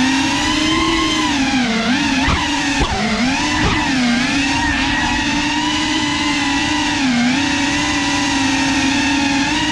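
Small drone's propellers and motors whining steadily from on board, the pitch swooping down and up a few times between two and four seconds in and dipping briefly near seven seconds as the drone manoeuvres. Two short knocks come around two and three seconds in.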